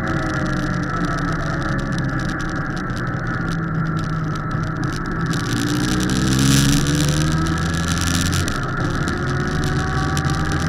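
Motorcycle engine running while riding, its pitch rising about halfway through as it accelerates, with wind rushing past that grows louder at the same time.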